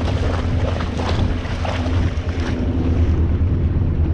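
Small motorboat under way: a steady low engine drone with water rushing and splashing along the hull, and wind buffeting the microphone.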